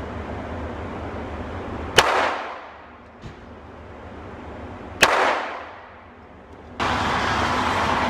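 Two pistol shots about three seconds apart, each sharp report followed by a ringing echo. A steady rushing noise comes in abruptly near the end.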